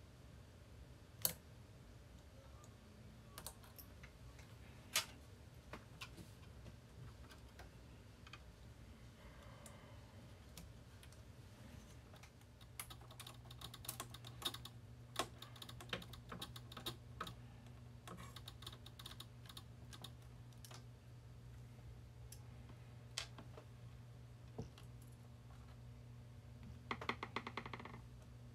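Faint, scattered clicks and taps of hands handling the plastic and metal parts of an AKAI GXC-709D cassette deck's tape mechanism, with a few sharper clicks in the first five seconds and a quick run of clicks near the end. A low steady hum starts about halfway through.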